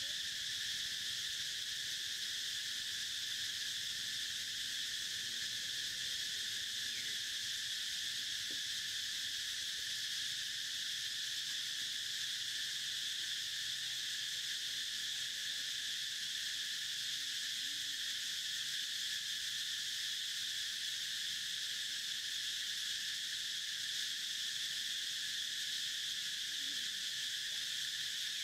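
Steady insect chorus: a continuous high-pitched trilling that does not rise or fall.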